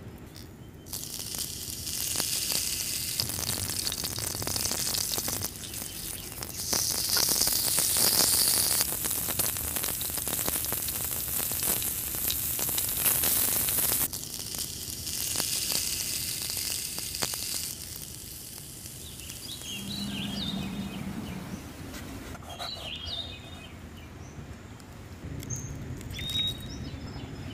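Beef steak sizzling in oil on a small tabletop grill while butter is rubbed over it. The sizzle is loudest for several seconds midway and dies down about two-thirds of the way through, leaving a quieter stretch with faint bird chirps near the end.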